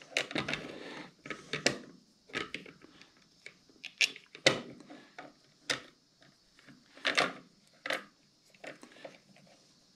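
Irregular clicks and light knocks of small hard parts being handled: a steering bracket and its nut being fitted onto a pedal-drive slide rail. The louder knocks come about four seconds in, just after, and about seven seconds in.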